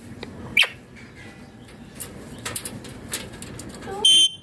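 Indian ringneck parakeet calling: a short sharp squawk about half a second in and a loud, harsh screech near the end, with faint clicks in between.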